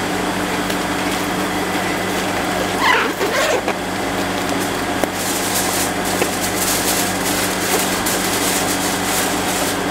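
Steady mechanical hum of a running machine, with a short higher sound about three seconds in.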